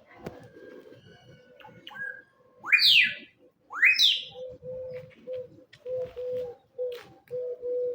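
Bird calls: two loud rising calls about three and four seconds in, followed by a steady run of short, low cooing notes, two or three a second.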